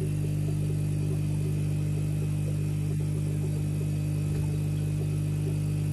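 Steady low mechanical hum of running fish-room equipment, even and unchanging, with a faint click about halfway through.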